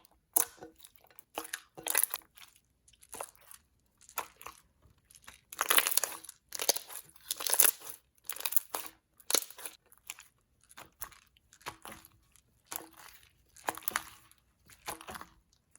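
Hands folding and pressing a thin, clear slime, making irregular crackly squishes and little bubble pops, roughly one every second.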